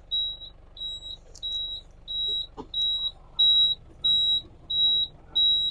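A high-pitched electronic beeper sounding steadily, about three short beeps every two seconds, from a warning buzzer on the modified jeep.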